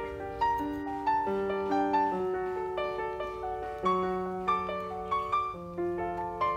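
Background piano music: a melody of overlapping notes, a new note struck every half second or so.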